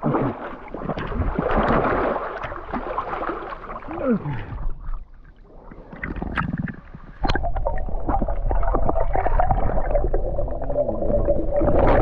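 River water splashing and sloshing close to the microphone. From about seven seconds in, the sound turns to a steady, muffled underwater rumble with a faint hum, heard with the microphone under the water.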